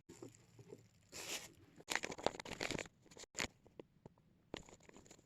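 Watch packaging being handled and opened: irregular rustling and scraping with scattered small clicks, and a short rustling burst about a second in.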